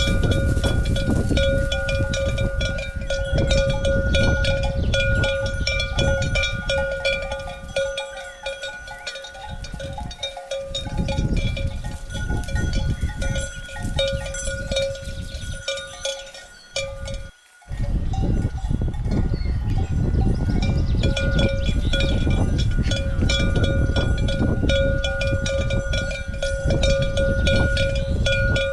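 Cowbells clanking and ringing over and over, their metallic ring held on a few steady tones, over a low rumble. About two-thirds of the way through the sound thins out and cuts out abruptly for a moment, then comes back at full strength.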